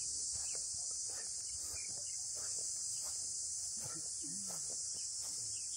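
A steady, high-pitched chorus of insects chirring in the woods, with faint distant voices beneath it.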